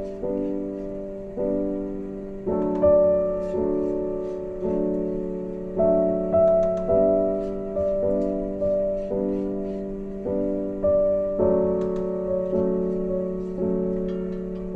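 Background piano music: a slow, gentle tune of single notes and chords, each struck and left to fade before the next.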